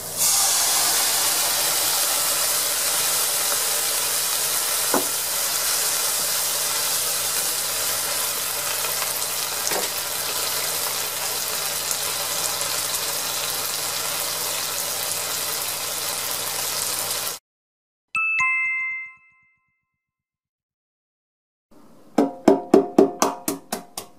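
Seasoning liquid hitting a hot frying pan of fried tofu pouch strips and snow peas, sizzling steadily as it simmers, then cutting off suddenly. A short two-note chime follows, then a quick run of sharp clicks.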